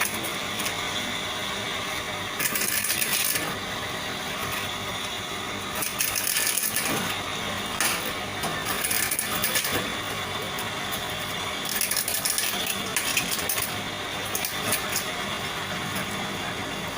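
Homemade coconut-shell peeling machine running with a steady motor hum, broken by several bursts of harsh rattling and scraping as the hard coconut shell is stripped off.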